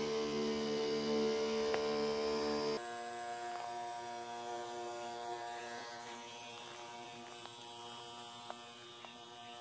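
Steady hum of a small motor-driven sprayer pump. About three seconds in it drops in level and changes tone, then runs on evenly.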